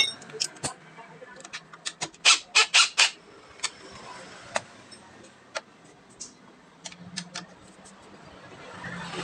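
Irregular sharp metallic clicks and clinks from hand tools and metal engine parts being handled and fitted while a motorcycle engine is assembled, with a quick run of louder knocks about two to three seconds in.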